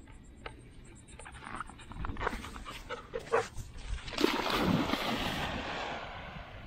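A dog running and bounding through shallow water: a run of splashing footfalls, then a big splash and churning water lasting a couple of seconds that tails off.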